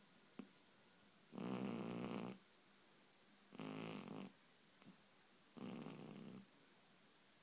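A sleeping domestic cat snoring: three rasping snores, each about a second long and about two seconds apart, the first the loudest.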